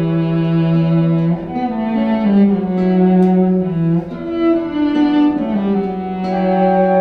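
Bowed string instrument playing a slow melody of long held notes in a low register, moving from note to note in steps.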